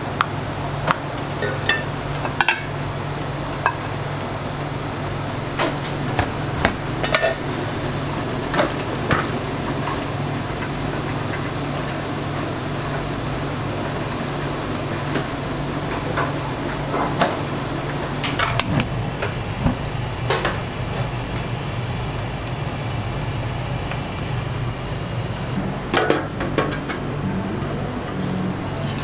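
Kitchen work sounds: scattered sharp clacks and knocks of utensils, a metal bowl and plates being handled, over a steady low hum.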